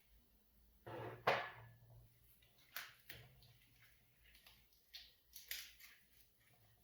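Kitchen handling sounds while cooking: one louder clatter about a second in, then several light clicks and knocks.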